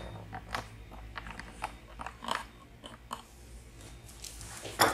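Handling noise: scattered light clicks and crinkly rustles, with a louder crunch a little before the end, over a low steady hum.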